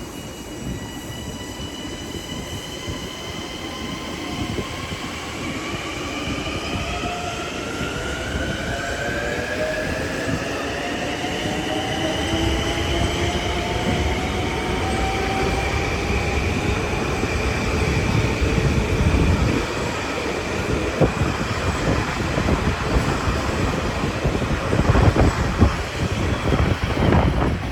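Electric commuter train pulling away, its motors whining in several tones that rise steadily in pitch for about fifteen seconds as it gathers speed, then level off. Wheels clatter over the rails near the end.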